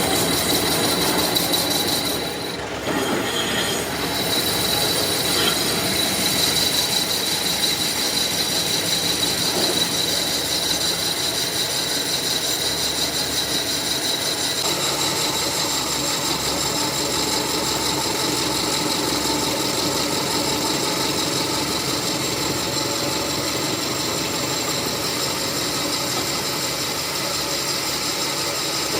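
Metalworking machinery running steadily, with several high steady whines over a noisy bed and a brief dip in level about two seconds in.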